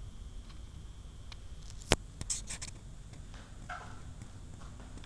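Handling noise on a cheap action camera's built-in microphone as it is carried: a low rumble with rubbing, a sharp click about two seconds in and a few lighter clicks just after.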